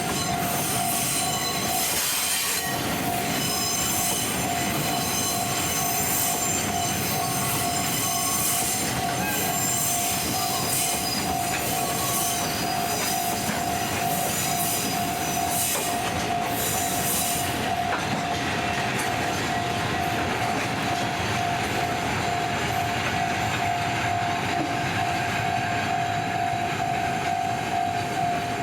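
Railway wagons rolling over the cement works siding, their wheels squealing shrilly for about the first two-thirds before the squeal fades. A steady single-pitched tone sounds throughout.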